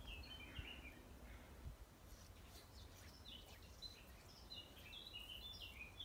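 Faint songbird singing: quick runs of short high notes, one phrase in the first second and another from about three seconds in, over quiet riverside background.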